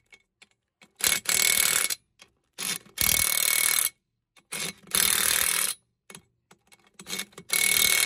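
Cordless impact wrench hammering lug nuts tight on a spare tire's wheel, in four bursts of about a second each, each led by a short blip. It moves from nut to nut in a cross pattern.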